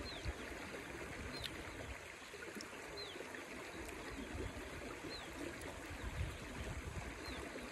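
Shallow river water running steadily over rocks. A faint, short, high falling note repeats every second or two above it.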